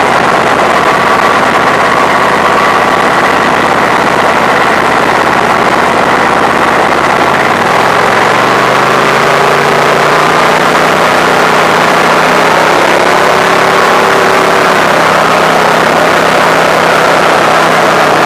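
Engine of a small off-road vehicle running loud and steady while it drives along a rough dirt track. The engine note shifts in pitch from about eight seconds in.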